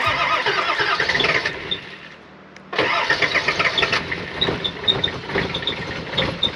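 Nissan GQ Patrol's TD42 six-cylinder diesel starting from cold in freezing weather: it catches abruptly about three seconds in, after a short lull, and keeps running at idle.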